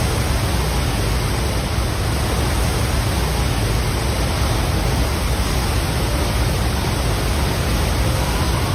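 Steady, loud rushing noise with a deep rumble underneath.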